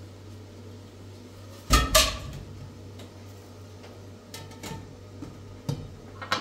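Objects being handled: two loud knocks close together about two seconds in, then a few lighter clicks and taps, over a steady low hum.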